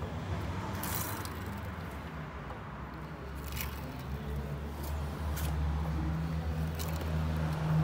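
Hand primer on a newly fitted diesel fuel filter being pumped to bleed air from the fuel line: four short clicks a second or two apart, over a steady low hum that grows louder about halfway through.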